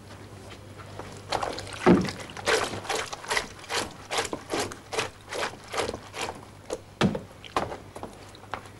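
Wet clothes being scrubbed by hand on a washboard in a wooden tub of water: a steady run of rubbing, sloshing strokes, about three or four a second, starting about a second in.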